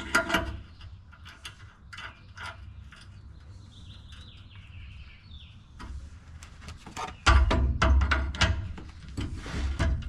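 An adjustable wrench working at rusted exhaust nuts under a truck: scattered sharp metal clicks and clinks, then from about seven seconds in a louder stretch of knocking and scraping that rumbles through the chassis. Faint bird chirps in the middle.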